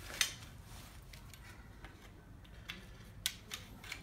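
Metal tube sections of a star balloon-arch frame being handled and fitted together with push-button snap connectors: a series of short metallic clicks and taps, the loudest just after the start and another a little past three seconds in.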